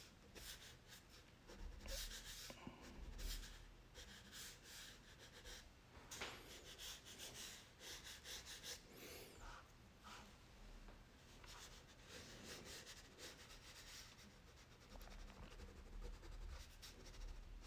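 Black Crayola crayon rubbing on drawing paper in quick repeated strokes as shading is laid down, faint.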